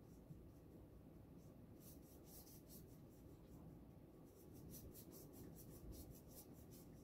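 Faint scratchy swishes of a paintbrush's bristles stroking acrylic paint onto a hardboard panel: a few short strokes about two seconds in, then a quicker run of back-and-forth strokes from about four seconds in.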